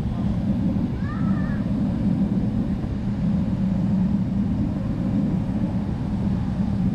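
Steady low engine and cabin noise heard from a window seat inside a Boeing 777-300ER, with its GE90 turbofans running. A faint brief high sound rises and falls about a second in.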